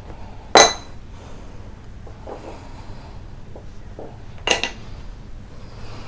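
Two sharp metallic clinks about four seconds apart, each with a brief ringing tail, the first the louder.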